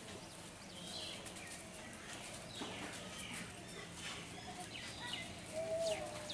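Outdoor rural ambience of birds calling: many short chirps and falling whistles over a steady low hiss, with a louder held call near the end.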